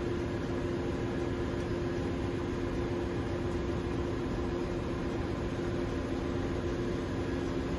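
Ship's engine-room machinery running: a steady drone and hiss with a constant hum, unchanging throughout.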